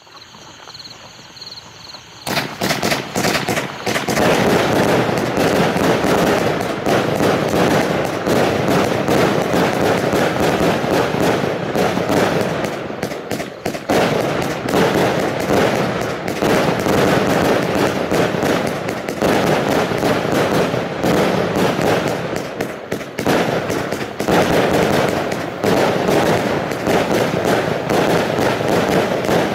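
A 100-shot 20mm firework cake (Funke Sulphur Crown) firing. After about two seconds of quieter fizzing, shots go off in a fast, continuous stream, with brief dips about halfway through and again later on.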